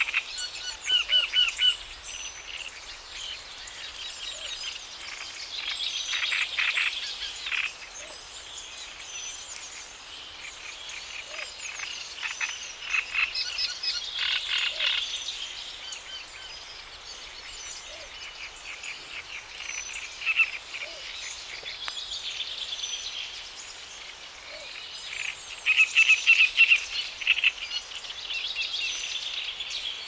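Outdoor woodland ambience: birds calling and chirping in short repeated notes and trills, with louder bursts of calling a few times.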